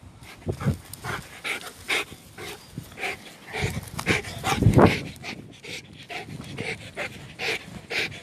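Bernese mountain dog panting hard right at the microphone after fetching in the water, quick breaths at about two or three a second, with a louder low thump about halfway through.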